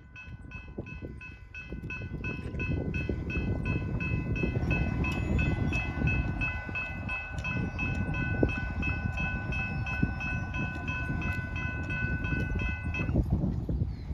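Railroad grade-crossing bell ringing about twice a second, stopping about 13 seconds in, over the rising rumble of an approaching Norfolk Southern manifest freight train.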